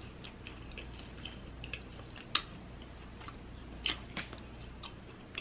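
A person chewing a mouthful of birria taco: soft, wet mouth clicks and smacks at an irregular pace, with a few sharper clicks among them.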